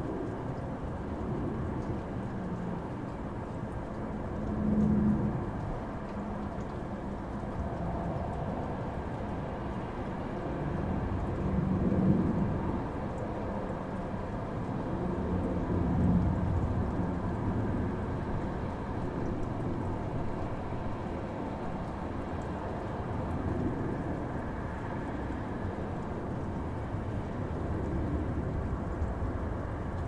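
Continuous deep, steady noise from a sleep-noise track sold as white noise, its energy mostly low down rather than evenly spread. It swells briefly in loudness about 5, 12 and 16 seconds in.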